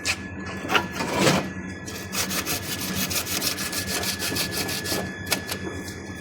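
Rapid, rhythmic scraping or rubbing strokes, several a second, with a faint steady high tone beneath.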